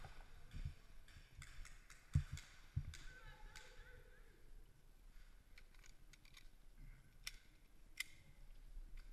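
Handling and movement noise on a head-mounted action camera as an airsoft player crouches and shifts gear: soft rustling and low thumps, the loudest about two seconds in. A faint voice is heard around three seconds in, and there are a couple of sharp clicks near the end.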